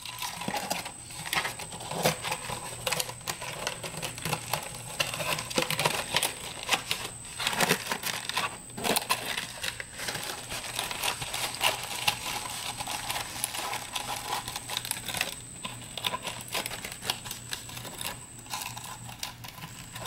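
Wire-mesh screen being pressed into a drilled plastic container: irregular crinkling, scraping and small rattling clicks as the mesh shifts against the plastic.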